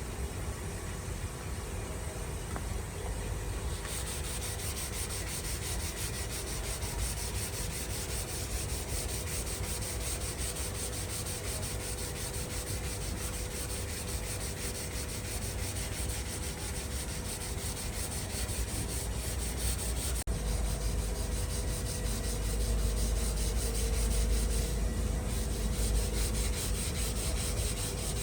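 Wood spinning on a lathe with a steady motor hum, while a tool or sandpaper rubs against the turning wood. The sound changes abruptly about four seconds in and again about two-thirds of the way through.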